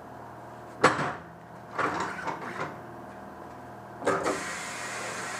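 Workshop handling noises: a sharp knock, a short run of clattering knocks, then another knock about four seconds in, after which a steady hiss sets in.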